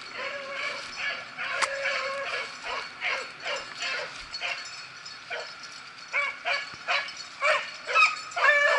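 Beagles baying in a run of short, repeated yelps, louder from about six seconds in: the hounds giving voice as they run a rabbit's trail.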